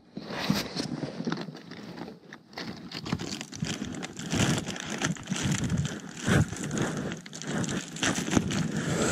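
The crinkly Dyneema fabric of a ZPacks Duplex tent rustling and crackling as it is handled with both hands close to the microphone, with many small crackles throughout.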